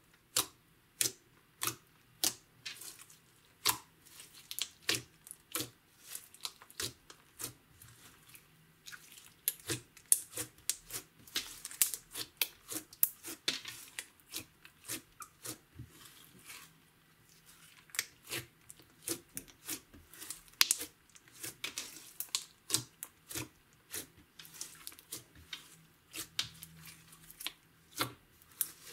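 Green glitter slime being pressed and poked with the fingers, giving an irregular run of sharp, wet clicks and pops, several a second, with a couple of short lulls.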